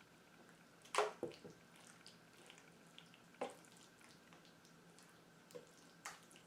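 A handful of faint, separate utensil clicks and wet squishes from working a thick pear batter in the kitchen. The loudest comes about a second in.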